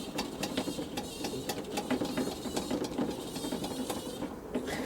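Hand priming pump on the KamAZ diesel's fuel system being worked, a quick run of mechanical clicks several a second, bleeding air out of the newly fitted fuel lines before a start.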